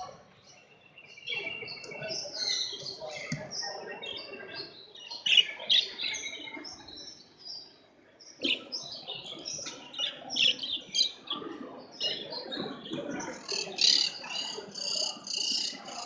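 Many caged budgerigars and other cage birds chirping and chattering together in a dense, overlapping mix, starting about a second in and easing briefly about halfway through.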